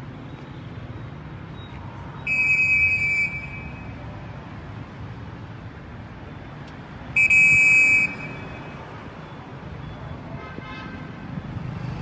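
A high-pitched vehicle horn honks twice, about a second each and about five seconds apart, over steady street traffic noise.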